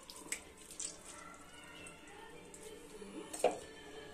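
Boiled spinach squeezed by hand to press the water out of it, with faint wet squishing and dripping. About three and a half seconds in there is a single sharp knock.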